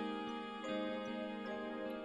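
Quiet background music of held, pitched notes that change every half second or so.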